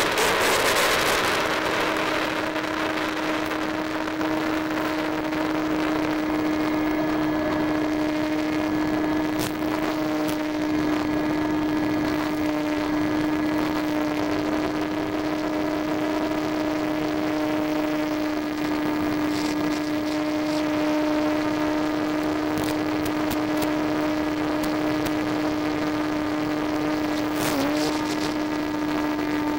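Electric motor and pusher propeller of a Multiplex EasyStar FPV model plane, heard through the onboard camera, giving a steady high drone at constant throttle. A rush of wind covers it for the first couple of seconds, and its pitch dips briefly near the end.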